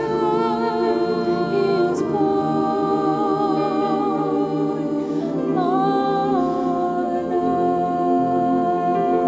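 Slow vocal music: several voices holding long notes in harmony, with a change of chord about two seconds in and again around five and a half seconds in.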